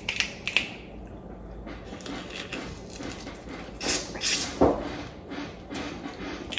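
Close-up eating sounds of boiled crawfish: shells cracking and being peeled by hand, with small clicks, and a slurp as a crawfish is sucked about four seconds in.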